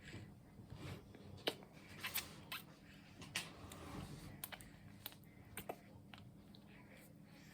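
Six-month-old baby sucking on a bottle of formula milk: faint, irregular clicks and smacks of the nipple, about a dozen.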